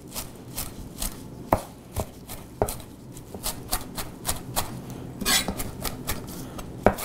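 Yaxell Dragon Fusion chef's knife rock-chopping parsley on a plastic cutting board: a steady run of sharp knocks, about two to three a second, as the blade comes down on the board.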